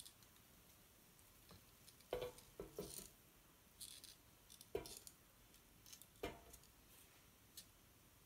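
Faint clicks and taps of plastic kitchen tongs picking thin pancake strips off a crepe pan and dropping them into a bowl: a short cluster of taps a couple of seconds in, then single clicks near the middle and later.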